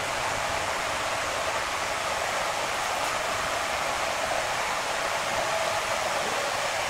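Giant log band sawmill running with a steady, even noise.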